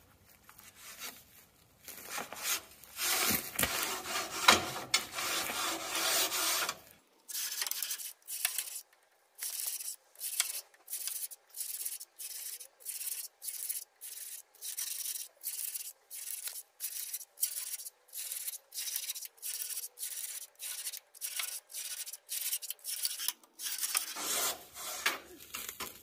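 A tube brush on a long rod scraping in and out of the soot-caked fire tubes of a Trevithick locomotive replica's boiler, sweeping them clean. First a few seconds of continuous scrubbing, then steady back-and-forth strokes about two a second.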